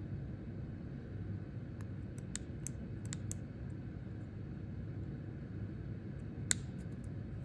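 A few small, sharp clicks of a cutting tool snipping plastic bird netting, several in quick succession around two to three seconds in and a louder single snip about six and a half seconds in, over a steady low hum.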